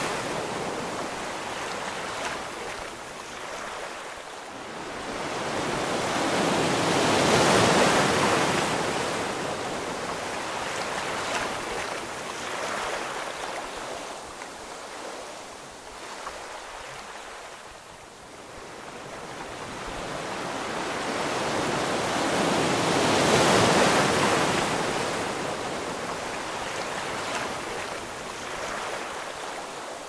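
Ocean waves surging and receding: two large swells build and fade about fifteen seconds apart, with a softer wash of water between them.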